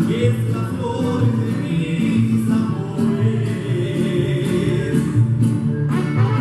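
Tierra Caliente mariachi band playing live, with voices singing together over violins, guitars and trumpets and a steady bass beat.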